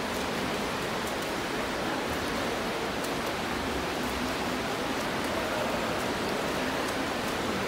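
Indoor swimming pool ambience: a steady wash of water noise from swimmers' freestyle strokes and the pool's water, with small splash ticks scattered throughout.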